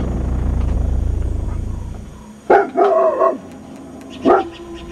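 Dog barking: a quick pair of barks about two and a half seconds in, the second one longer, then one more bark near the end, after a steady low drone fades out.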